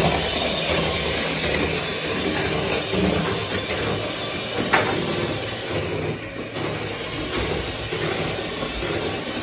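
Electric kitchen mixer running steadily with a whirring motor hum.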